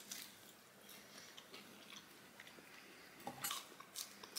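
A person chewing a big bite of a tall burger, with soft, quiet crunches and mouth sounds and a louder cluster of crunching near the end.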